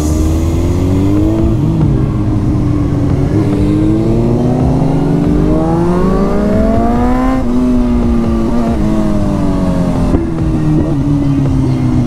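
Suzuki GSX-R1000 K8 inline-four running through decatted twin Cobra exhausts while ridden: revs climb steadily for several seconds, dip sharply about seven seconds in, then ease down slowly.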